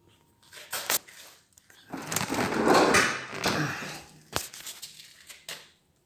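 Handling sounds: a few sharp clicks, and about two seconds of rubbing in the middle.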